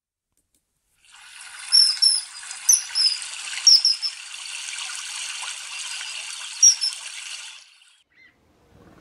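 Running water with a handful of short, high bird calls over it, starting about a second in and fading out near the end.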